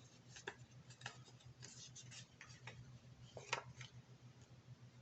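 Faint, scattered small clicks and taps from handling a phone and screen-protector guide stickers on a table, the loudest about three and a half seconds in, over a low steady hum.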